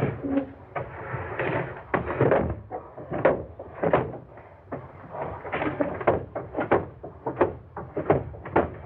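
Heavy footsteps and knocks of a man carrying a body down wooden basement stairs, an irregular run of thuds about two or three a second.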